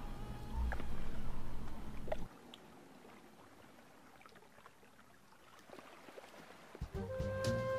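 A low rumbling noise that cuts off about two seconds in, leaving faint trickling and lapping of water among sea ice. Music comes in near the end.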